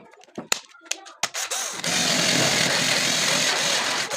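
A few sharp knocks, then a handheld power tool starts and runs steadily for about two seconds before cutting off suddenly.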